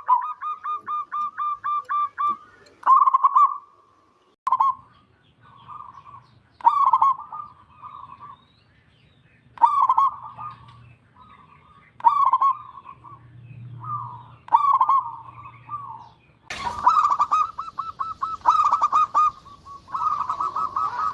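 Zebra dove (perkutut) cooing: a rapid run of short staccato coos, then a string of short cooing phrases with pauses between them, and a denser, louder run of coos near the end.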